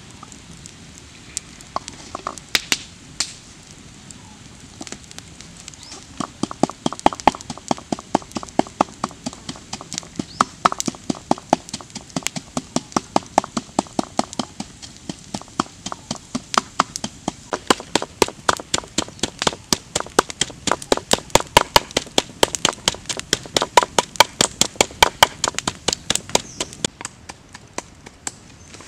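Wooden pestle pounding in a small clay mortar: a few scattered strikes at first, then from about six seconds in a steady run of sharp knocks, about three to four a second, stopping shortly before the end.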